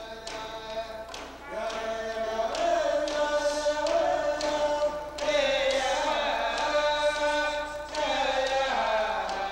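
Music: voices singing or chanting over held tones and a steady drum beat, about three strokes every two seconds.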